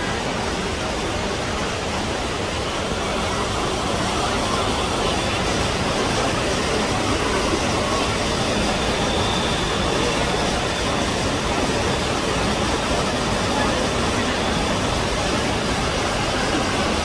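Waterfall rushing steadily into a rock pool, a continuous even rush of water.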